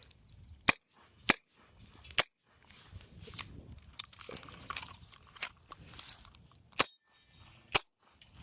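Gunshots from an AR pistol. Three sharp shots come in the first couple of seconds, fitting a two-to-the-chest, one-to-the-head drill. Fainter pops follow, then two more sharp shots near the end.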